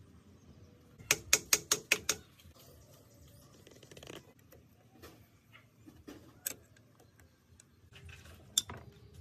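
Metal-on-metal clicks and taps of a screwdriver working on the rusty head of an old Mitsubishi sewing machine: a quick run of about six sharp taps about a second in, then scattered single clicks and faint scraping.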